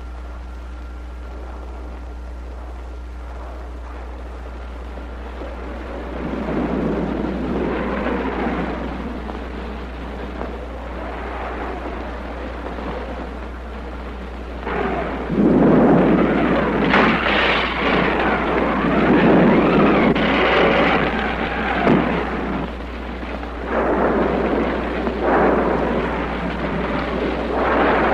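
Thunderstorm sound effect on an old film soundtrack: rumbling thunder and storm noise that rise about six seconds in and surge louder and in waves through the second half, over a steady low hum.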